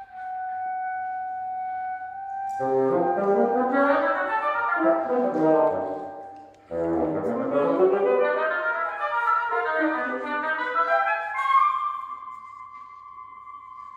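Wind sextet of flute, oboe, French horn, saxophone, bassoon and clarinet playing contemporary chamber music. A single held note gives way to the whole ensemble entering with many overlapping rising lines. The music breaks off briefly at about six and a half seconds, the ensemble swells again, and it settles into one high held note near the end.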